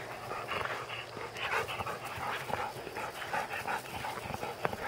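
Yellow Labrador-type dog panting in quick, repeated breaths, worked up and excited.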